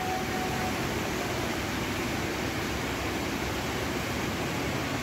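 Electric pedestal fans and a large drum fan running, a steady even whoosh of moving air.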